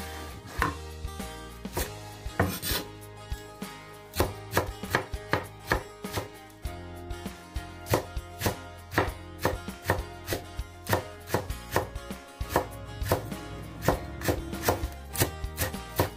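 A broad-bladed kitchen knife chopping spring onion on a wooden cutting board: a long run of sharp knocks, about two to three a second, with a few short pauses.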